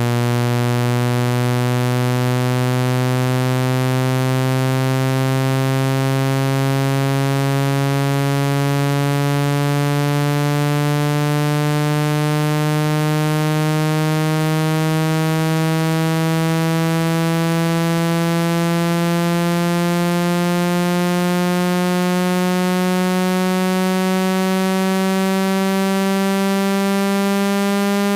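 Synthetic low buzzing tone, rich in overtones, slowly gliding upward in pitch: a speaker-cleaning sound played to vibrate water out of a phone's speaker.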